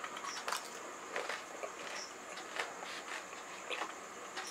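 Close-miked chewing of a whole pani puri: the crisp fried shell crunching and the water-filled mouthful squelching, in irregular crunches and clicks.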